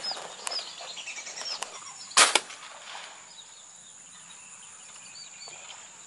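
A single air rifle shot about two seconds in, a sharp crack with a quick echo. It is a follow-up shot at a wounded waterbird that kept diving.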